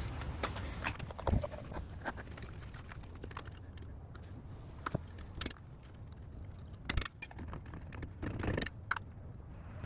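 Irregular metallic clinks and taps of a hand wrench working the small caliper bolts on a pickup's front brake, over a steady low rumble.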